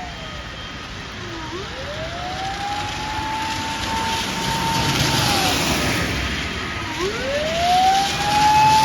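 Japanese fire engine's mechanical motor siren winding down and spinning back up, twice. Each time its wail drops steadily to a low pitch over about a second and a half, then climbs back and holds a steady high note.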